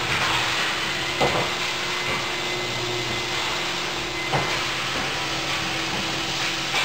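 Industrial robot cell running: a steady hissing machinery din with a constant hum, broken by two sharp knocks, about a second in and again past four seconds, as tooling in the cell closes or parts are set down.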